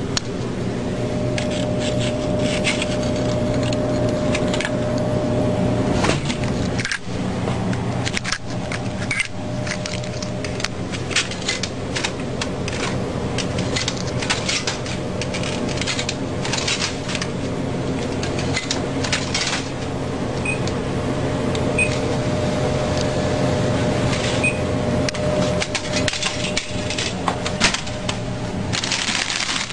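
Vending machine running with a steady hum while its buttons and mechanism click again and again. A few short high beeps sound in the second half, and a brief rushing rattle comes near the end.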